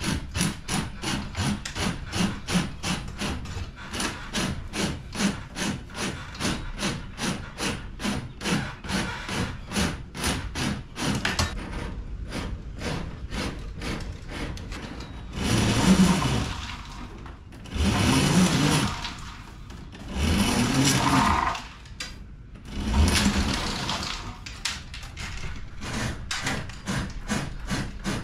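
Hacksaw strokes cutting through EMT steel conduit, a steady back-and-forth of about three to four strokes a second. About halfway through, the strokes give way to four louder, longer rasping bursts, then resume near the end.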